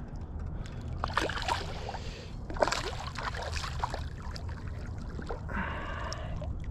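A hooked carp thrashing at the surface close by, splashing water in two bursts, the first about a second in and the second around three seconds in, then a wash of sloshing water near the end.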